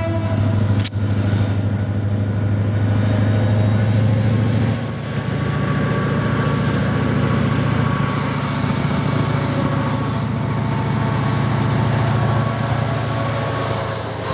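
Fort Smith Railroad locomotive 2038's diesel engine running with a steady low drone as it pulls a freight train past, easing slightly after about five seconds.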